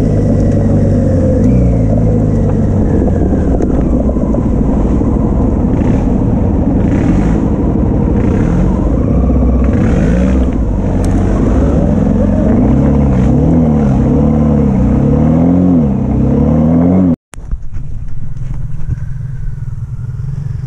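An adventure motorcycle's engine, heard close up from on board, revving up and down repeatedly while riding a muddy trail. It breaks off suddenly about seventeen seconds in, and motorcycles are then heard more quietly as they approach.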